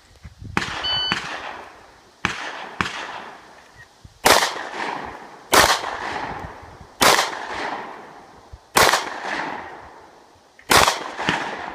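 A shot timer gives its electronic start beep, then a pistol is fired about eight times in ones and quick pairs. Each shot leaves a long echoing tail.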